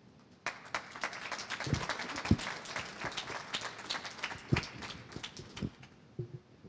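Audience applauding, starting about half a second in and dying away near the end, with a few dull thumps in the middle.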